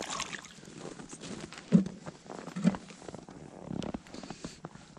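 Close handling noise of gloved hands and winter clothing rustling, with scattered light clicks from an ice fishing rod and spinning reel and two dull thumps about two and three seconds in.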